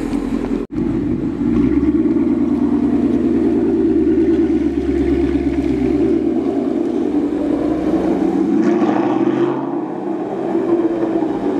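Ford Mustang GT's 5.0 V8 running through a Corsa Extreme cat-back exhaust, holding a steady note with no sharp revs. The sound cuts out briefly just under a second in.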